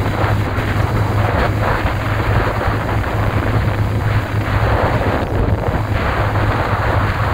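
Motorcycle engine running at a steady cruise, a constant low hum, under rushing wind noise on the microphone that swells and eases as the bike moves along.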